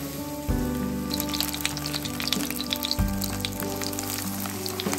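Batter-coated napa cabbage leaves sizzling and crackling in hot oil in a frying pan, the crackle picking up from about a second in.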